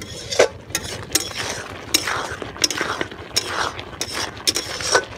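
Metal spatula scraping and stirring round an iron kadai, in repeated strokes about two a second, as semolina mixture is cooked down in sugar syrup until the syrup dries off.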